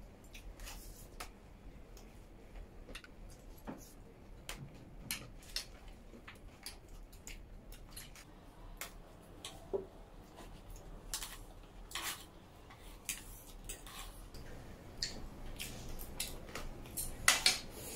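Forks and spoons clinking and scraping against trays of noodles, a scatter of small irregular clicks, a little busier near the end.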